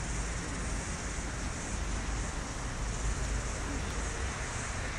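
Steady outdoor background noise with a heavy low rumble and no distinct strikes.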